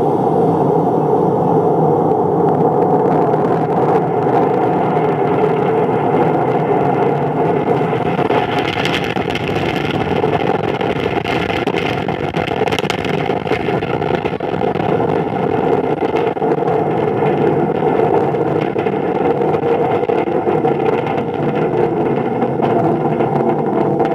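Recorded launch roar of an H-IIB rocket, with its two LE-7A main engines and four solid rocket boosters, as heard 3 km from the pad, played back over loudspeakers. It is a loud, continuous, rumbling roar with a rough crackle through it, and it turns brighter and harsher about eight to thirteen seconds in.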